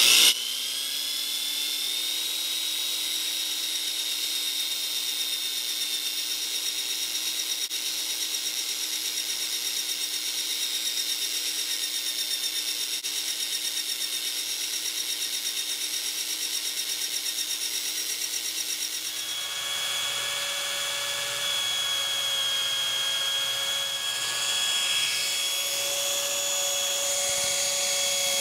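Electric drill turning a homemade line-boring bar, taking a light first pass through the steel loader-arm pivot bore; the cutter bites only part of the bore because the bore is out of line. The drill's whine starts abruptly and runs steadily, changing pitch about two-thirds of the way through.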